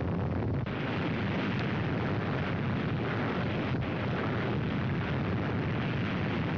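Loud, steady rumbling roar of a huge atomic-bomb explosion, heaviest in the low end and sustained without a break or any single sharp blast.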